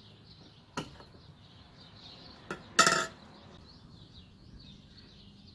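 Metal paint tin of primer being handled: a couple of light knocks, then a loud ringing metallic clink about three seconds in. Faint bird chirps behind.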